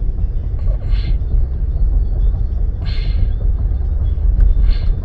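Steady low rumble of a car on the move, heard from inside the cabin, with three short hisses about one, three and five seconds in.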